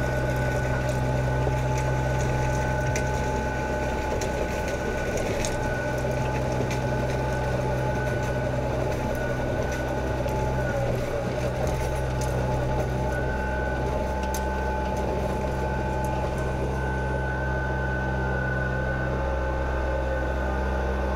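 Kubota BX subcompact tractor's diesel engine running steadily while it drives a rear-mounted PTO rotary tiller, with a thin high whine over the engine note.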